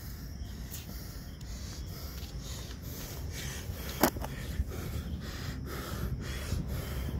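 Forceful rhythmic breathing, sharp puffs of breath in a quick, even rhythm, from a man doing fast Hindu squats (dand-baithak style sapate). A single sharp knock about four seconds in is the loudest sound.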